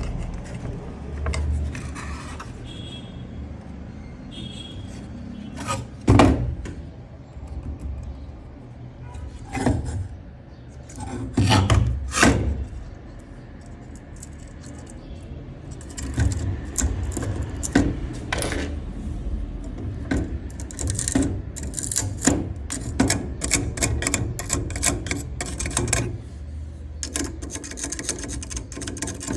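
Irregular clicks, knocks and scraping of tools and parts being handled, busier and more rapid in the second half.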